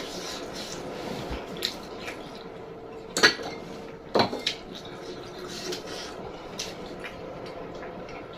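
Eating utensils clinking against a plate during a meal, with scattered light taps and two louder sharp clinks about three and four seconds in.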